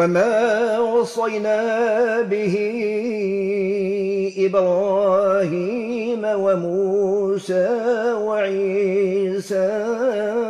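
A man reciting the Quran in the melodic Maghrebi style, chanting long, drawn-out notes whose pitch wavers in fine ornaments, with short breaks for breath and consonants.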